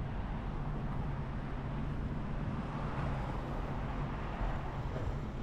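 A vehicle running steadily: a low, even engine hum under a constant rush of travel noise.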